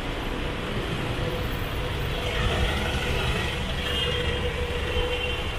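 Road traffic noise: a steady rumble of passing and idling vehicles, with a faint held engine tone.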